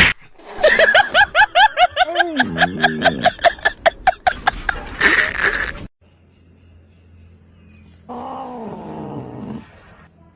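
A cat calling in a fast run of short, pitched cries, about five a second, for some five seconds. After an abrupt cut there is a faint hum and then a single lower, drawn-out animal call.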